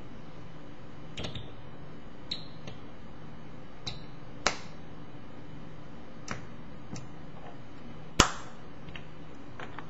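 Small clicks and light taps of a plastic dropper tip against a metal 510 clear-tank atomizer as it is filled with e-liquid, a few with a brief bright ring. About eight seconds in comes one louder knock as the metal tank is set down on the wooden table, over a faint steady hum.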